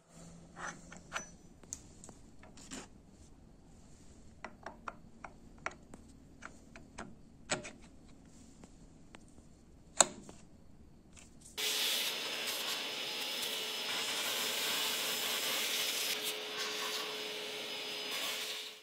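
Light clicks and taps of steel and aluminium parts being handled as a quick-change tool holder is slid onto a dovetail test piece. About twelve seconds in, a milling machine running with an end mill cuts in abruptly, a loud, steady, even noise.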